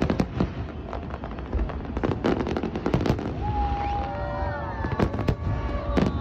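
Aerial fireworks bursting: a rapid series of sharp bangs over a steady low rumble, with whistle-like tones gliding downward in the second half.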